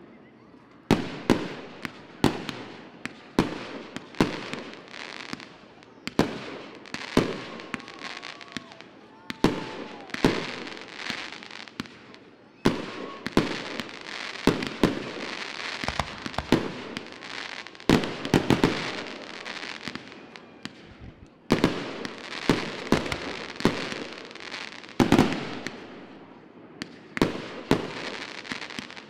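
Fireworks display: aerial shells bursting in a long irregular series of sharp bangs a second or two apart, each trailing off in an echo, with crackling between them.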